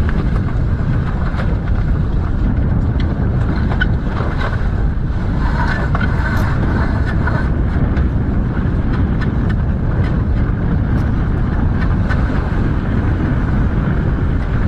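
Steady wind rushing and buffeting over the microphone on a sailing yacht under way, with a few faint clicks and knocks as the reefing lines are worked at the mast.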